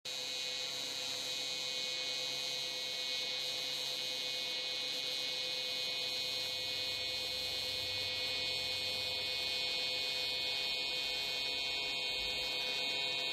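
AC TIG welding arc on thin-wall aluminum tubing, a steady high-pitched buzz from the welder running at about 100 Hz AC frequency.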